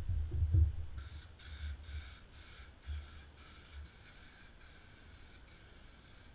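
A few dull low thuds, then from about a second in a run of short hissy bursts, two or three a second, from an aerosol can of spray adhesive being sprayed over a sheet of carpet.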